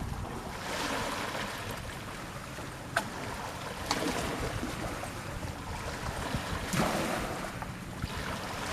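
Sea water washing in slow swells, with wind on the microphone and a steady low rumble underneath, and one sharp click about three seconds in.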